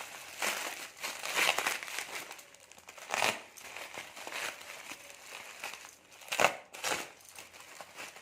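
Parcel packaging crinkling and rustling as it is handled and torn open, in irregular bursts, with louder crackles about three seconds in and twice more a little past six seconds.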